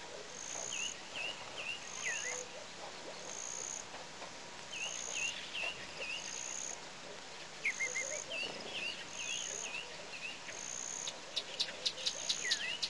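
Daytime African bush ambience at a waterhole: a high, even insect-like note repeats about once a second while small birds chirp in short runs. A quick run of sharp clicks comes near the end.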